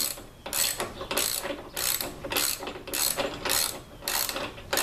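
Hand ratchet clicking in repeated back-and-forth strokes, about eight short bursts evenly spaced a little over half a second apart, as a bolt on the backrest mounting bracket is run down.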